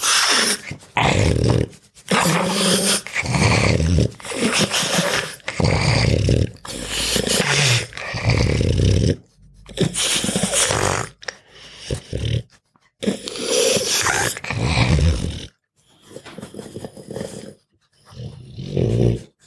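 Angry pug growling in repeated bursts, each from about half a second to two seconds long, with short pauses between.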